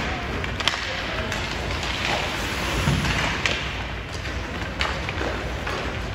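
Ice hockey play heard from the rink side: skates scraping the ice and sticks and puck clacking, with a few sharp knocks.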